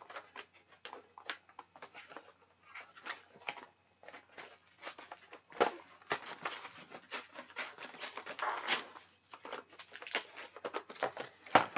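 Plastic retail packaging being torn open and crinkled by hand: a dense run of irregular crackles and tearing, louder about halfway through.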